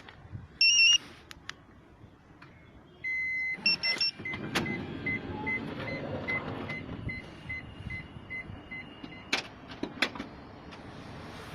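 StarLine B9 car alarm beeping: a loud short beep under a second in, a longer tone at about three seconds, then short even beeps a little over two a second. About four seconds in, a car engine starts and keeps running under the beeps, with a few sharp clicks.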